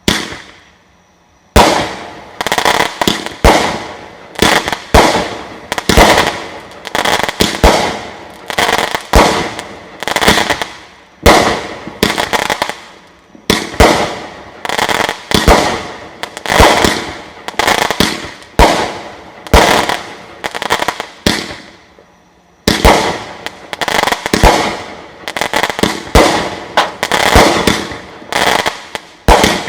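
Phantom VERTEBREAKER 500-gram, 36-shot firework cake firing shot after shot, with crackling aerial breaks. There is a short lull, then a faster, denser run of shots toward the end.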